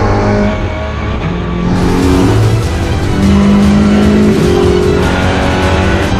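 Audi RS3 LMS touring car's turbocharged four-cylinder engine running hard on track, heard inside the car, with music playing loudly over it.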